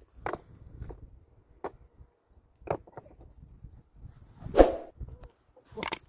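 Scattered knocks and scuffs of feet and stones on loose rocky ground, with one sharper, louder stone clack a little past four and a half seconds in.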